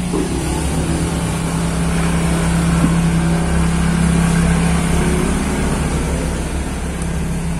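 A steady low hum, a little louder in the middle.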